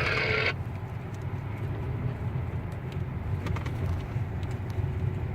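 An engine runs with a steady low drone. A loud hiss cuts off abruptly about half a second in.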